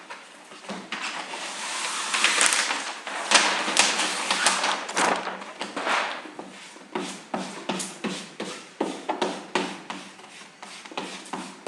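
Plastic squeegee working vinyl wrap film onto a refrigerator panel: repeated scraping, swishing strokes mixed with short taps and clicks. The strokes are longer and run together in the first half, then come as shorter, quicker strokes after about six seconds.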